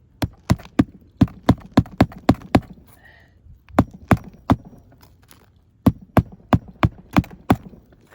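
Hammer driving roofing nails into a replaced asphalt shingle: three runs of sharp, evenly paced blows, about three a second, with short pauses between the runs.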